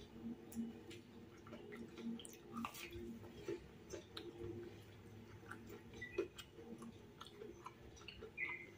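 Close chewing of crispy battered fried tofu stuffed with meatball, eaten with rice: scattered soft crackles and wet mouth clicks, with a faint steady hum underneath.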